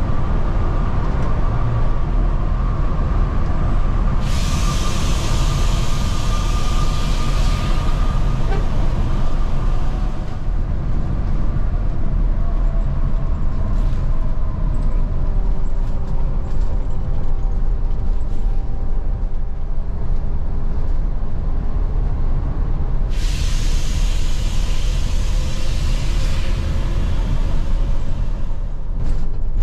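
Damri Royal Class coach running on the highway, heard from inside the cabin: a steady low rumble of engine and road, with a faint whine that slowly shifts in pitch. Two bursts of hiss of a few seconds each come about four seconds in and again near the end.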